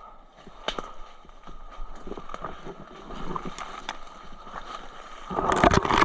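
Rustling and scattered steps through undergrowth, over a faint steady whine. Near the end comes a loud, rough burst about a second long, which the players take for a shot fired nearby.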